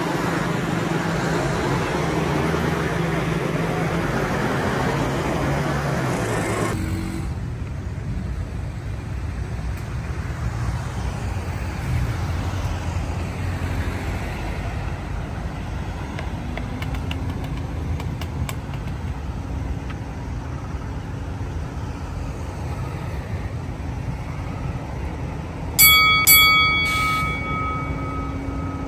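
City road traffic: vehicle engines running with a steady road noise. The sound changes abruptly about seven seconds in, and a short loud burst of sharp ringing strokes comes near the end.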